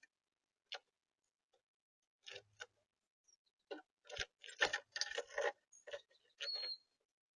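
Birds at a feeder pecking and handling seed: a scatter of small, sharp clicks and taps, a few at first, then coming thick and fast in the second half, with a brief thin high chirp near the end.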